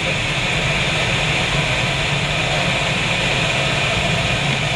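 Steady rush of air through a glider's cockpit in flight, its small canopy side window open.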